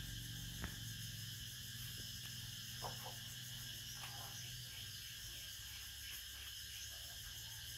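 Steady high-pitched insect chirring with a low hum underneath, broken by a sharp click just over half a second in and a few faint short sounds near the middle.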